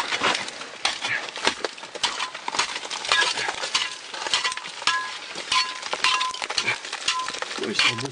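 Irregular clatter of a caver scrambling through a narrow rock crevice: boots and gear knocking, scraping and clinking on rock in quick, uneven clicks.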